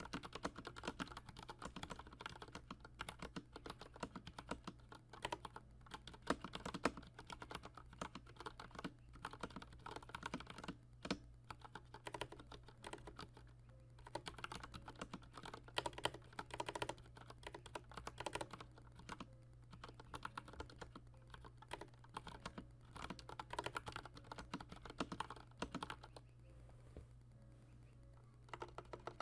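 IQUNIX L80 mechanical keyboard with Cherry MX Red linear switches being typed on continuously: rapid, irregular key clacks that thin out briefly near the end. A low steady hum runs underneath.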